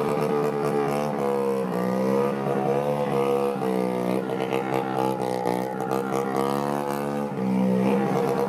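Small minibike engine revving hard, its pitch climbing and then dropping back several times in a row.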